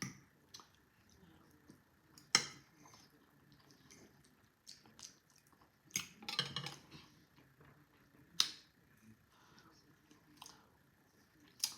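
A person eating close to the microphone: quiet chewing and mouth sounds with a handful of sharp clicks and smacks spaced a few seconds apart.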